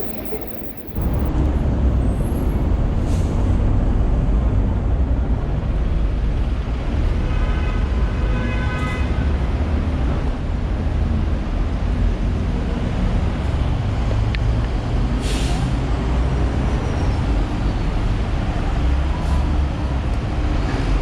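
Busy city street traffic: a steady low rumble of buses and cars passing, with a brief high-pitched squeal about eight seconds in.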